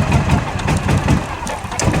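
A vehicle engine running unevenly just after a cold start, its low beat surging and sagging and dipping briefly near the end; it is reluctant to keep running in the cold.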